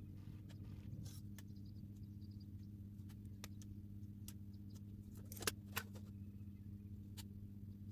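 Scattered light clicks and taps, with two sharper clicks close together about five and a half seconds in, over a steady low hum.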